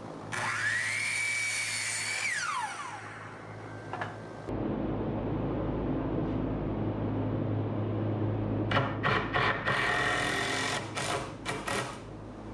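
A Kobalt sliding compound miter saw's motor spins up, runs steadily for about two seconds and winds down. Several seconds later a cordless drill runs in a string of short bursts, driving screws into wood blocking.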